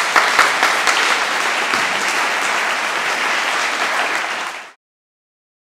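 Audience applauding, a dense patter of many hands clapping that cuts off suddenly near the end.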